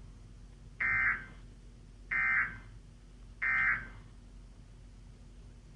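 Emergency Alert System end-of-message tones: three short, buzzy SAME data bursts just over a second apart. They signal that the flash flood warning broadcast has ended.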